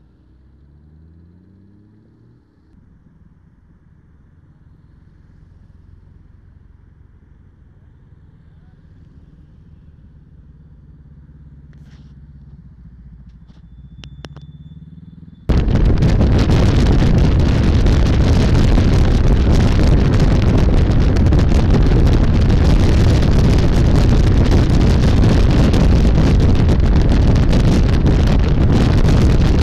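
Motorcycle engines running at low speed, one rising in pitch as it pulls away near the start. About halfway through it gives way abruptly to a loud, steady rush of wind and engine noise on a BMW R1200RT travelling at motorway speed.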